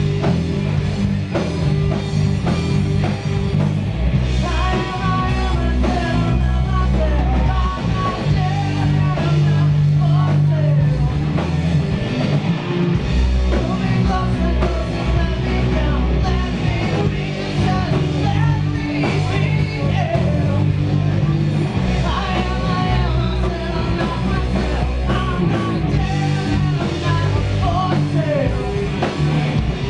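Live rock band playing loud and steady: distorted electric guitars, bass and drum kit, with a man singing into the microphone from a few seconds in.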